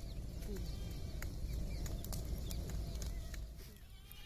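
Open wood fire of sticks and branches crackling, with scattered sharp pops, over a low steady rumble; it gets quieter near the end.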